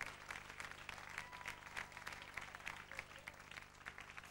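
Concert audience applauding: many hands clapping together, fairly faint and steady.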